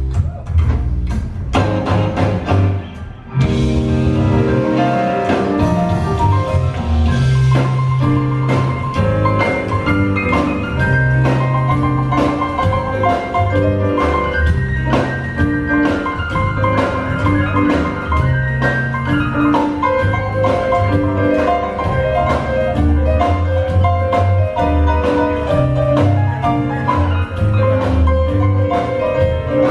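Live rock-and-roll band playing an instrumental break: an electric keyboard solo of quick, bright notes over an upright bass line and drums. A few separate band hits come in the first three seconds before the band settles into steady playing.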